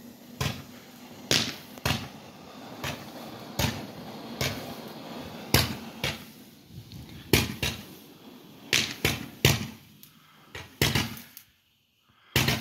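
Small ground firework fountain (a 'Vulkan') burning with a low hiss and about fifteen sharp cracks at irregular intervals. It dies away near the end.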